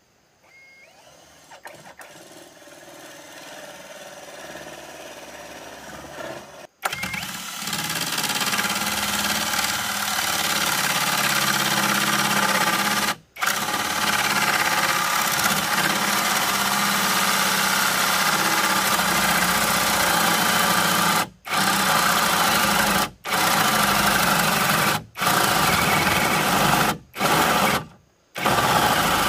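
A motor running steadily and loudly, breaking off abruptly several times in the second half.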